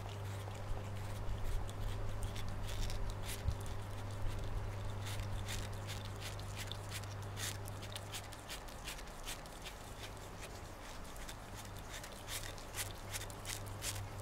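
Cat chewing and biting into a slice of watermelon: many small irregular wet crunches and clicks, with a steady low hum underneath.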